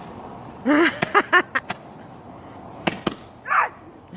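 Sharp cracks of small fireworks going off at irregular intervals: several in quick succession about a second in and two more near three seconds, with a short vocal exclamation among the first ones.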